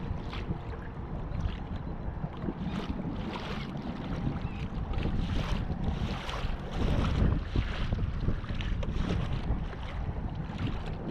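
Wind buffeting the microphone in a steady low rumble, with choppy waves slapping and splashing against a plastic kayak's hull every second or so.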